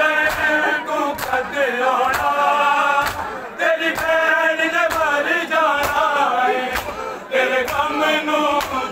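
Crowd of men chanting a Muharram mourning lament (noha) together. Sharp slaps of bare-handed chest-beating (matam) land roughly once a second in time with the chant.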